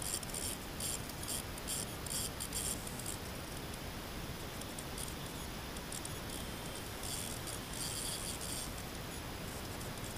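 Fishing reel being cranked, a quick high-pitched rasping clicking that comes in short runs, one in the first few seconds and another a little past the middle.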